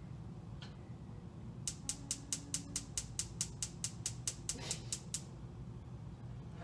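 Gas range burner igniter clicking rapidly, about five clicks a second, as a burner is lit under a pot of water; the clicking starts a couple of seconds in and stops after about three and a half seconds.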